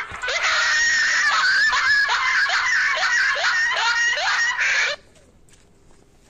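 Edited-in comic sound effect: a loud string of quick rising squeals, about two a second. It cuts off suddenly about five seconds in, leaving faint ticks.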